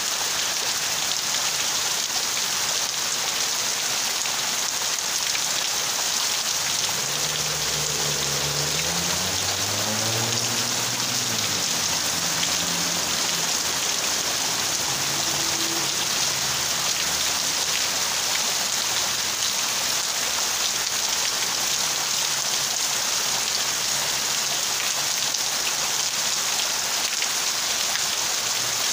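Heavy rain pouring steadily on palm fronds and pavement, a dense even hiss. Between about seven and twelve seconds in, a low hum joins it, bending up and down in pitch.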